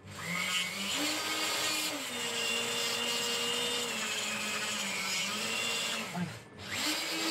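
Rotary tool with a small diamond cutting disc, running and cutting. Its pitch rises and dips as the disc is pressed into the work. It stops briefly about six and a half seconds in, then starts again.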